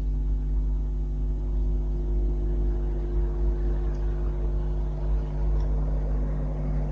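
A steady low hum made of several held tones over a low rumble.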